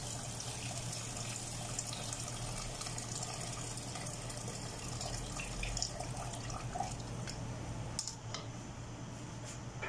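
Water poured in a steady stream into a large aluminium cooking pot, splashing onto the meat and broth. The pour ends about eight seconds in, followed by a couple of light clicks.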